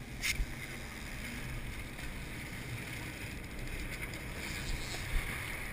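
Steady low rumble of a sportfishing boat's engines with water rushing past the hull and some wind on the microphone. There is a sharp click shortly after the start.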